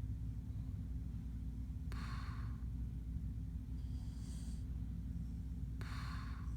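A man snoring in his sleep: two snoring breaths about four seconds apart, with a fainter, higher breath between them, over a steady low hum.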